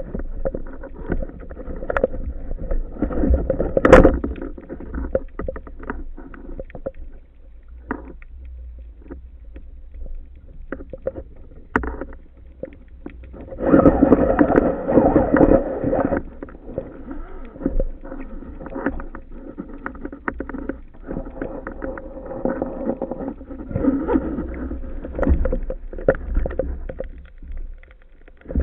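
Muffled underwater noise: an irregular water rush with scattered clicks and knocks, one sharp knock about four seconds in and a louder rushing stretch around the middle.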